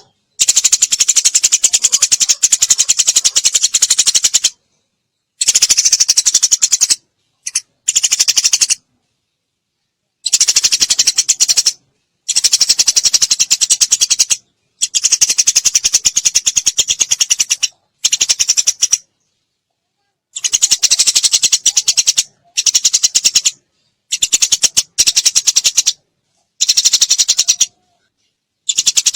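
Eurasian tree sparrow chattering in rapid-fire bursts of fast, high-pitched notes, each burst one to four seconds long with short silent breaks between them.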